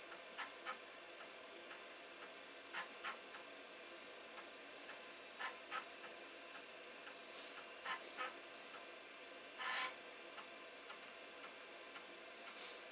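Faint steady ticking under sharp clicks, most of them in pairs about a third of a second apart, with a short scraping rub about ten seconds in.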